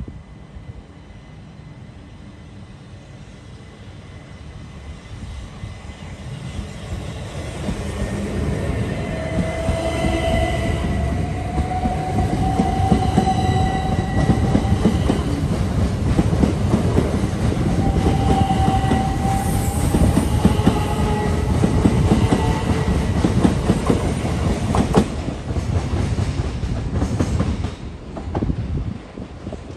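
A train approaching and passing close by. It is loud for about twenty seconds, with dense clatter of wheels on the rails and a few steady whining tones, some rising slightly. The sound falls away abruptly near the end.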